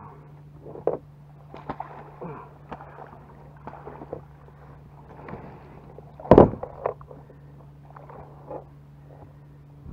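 A bird hooked on a fishing lure thrashing and splashing in shallow water at the bank, with irregular splashes and knocks, the loudest about six seconds in.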